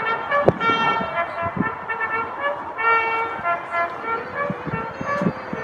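A brass instrument playing a slow call of long-held notes, each note sustained a second or more before moving to the next.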